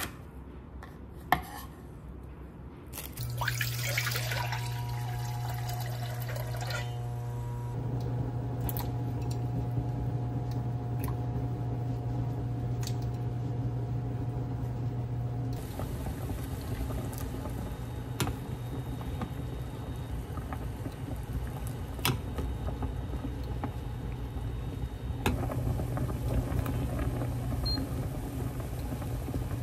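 Two knife chops through carrot on a wooden cutting board, then water running into a stainless saucepan over a steady low hum. Near the end the pot of water is bubbling at a boil.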